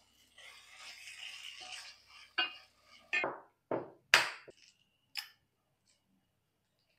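A wooden spatula scraping and stirring a mushroom and spinach mixture in a pan for about two seconds. Then about six sharp knocks and taps on hard surfaces, the loudest about four seconds in.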